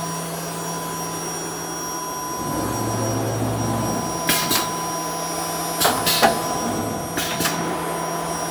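4-axis aluminium-profile CNC drilling and milling machine running with a steady whirring hum and a thin high whine. A deeper hum comes in briefly, and from about halfway through there are several short, sharp hissing bursts, mostly in pairs.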